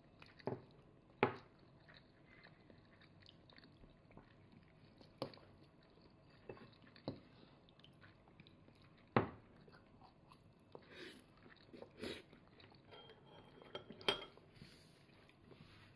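A toddler's metal fork and spoon clinking and tapping against a plate and bowl in scattered sharp taps, the loudest a little after a second in and about nine seconds in, with soft chewing between.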